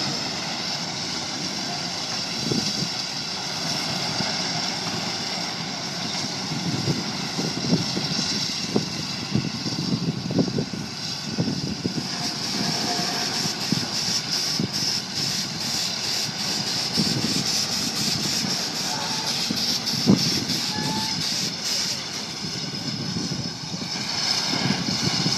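Steam shovel working: a steady hiss of steam with irregular clanks and knocks from its machinery as it digs and swings, the knocks coming thickest in the middle stretch.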